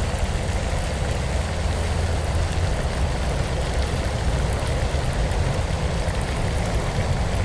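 A steady low rumble with an even hiss over it, with no clear pitch and no distinct events.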